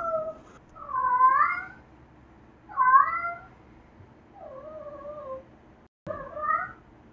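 Domestic cat meowing about five times in a row, each meow bending up and down in pitch; the fourth is quieter and falls away.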